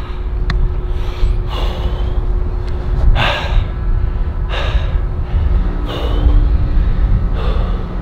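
A man breathing hard, out of breath just after finishing a shuttle-run beep test: about five heavy breaths, one every second and a half or so, over a steady low rumble.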